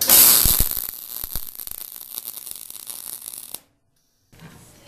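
MIG welding arc crackling as a corner weld is run on a steel angle-iron frame, loudest as the arc strikes. It cuts off suddenly about three and a half seconds in.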